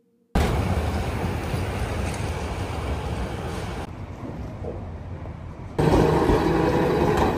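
City street noise with traffic running by, cutting in suddenly just after the start. It changes abruptly twice: it goes duller about halfway through, then louder and fuller about two seconds later.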